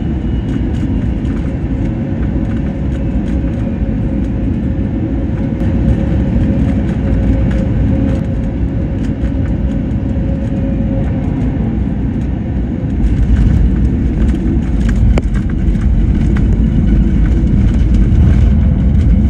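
Steady low rumble of a landed airliner rolling along the runway, heard from inside the cabin: engine and wheel noise. A faint steady tone runs through it until a little past halfway, and the rumble grows louder about two-thirds of the way through.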